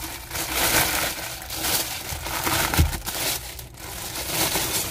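Clear plastic bag around a new sandal crinkling and rustling as it is handled, in uneven bursts, with a dull thump about three seconds in.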